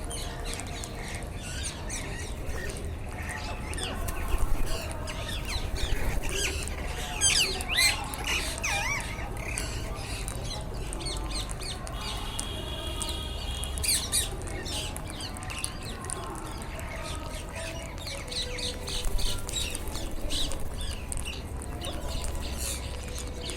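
A flock of rose-ringed parakeets (Indian ringnecks) calling: repeated short, sharp squawks and screeches that come in louder clusters several times, over a steady low rumble.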